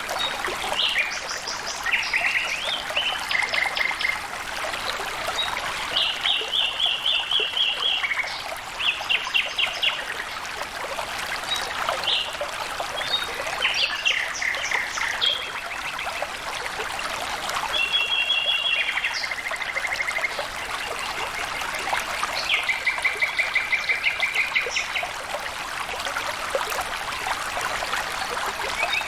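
Flowing water trickling steadily, with songbirds singing short, rapid trilled phrases every few seconds.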